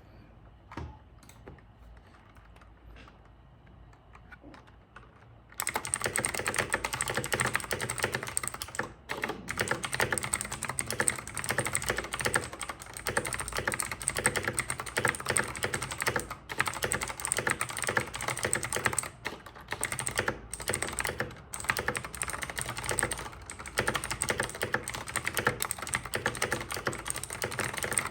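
Razer BlackWidow 2019 mechanical keyboard with clicky Razer Green switches being typed on fast and continuously. The first few seconds hold only a few faint clicks, then rapid typing starts about five and a half seconds in and runs on with only brief pauses.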